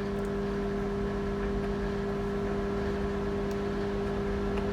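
Microwave oven running with a steady, even hum.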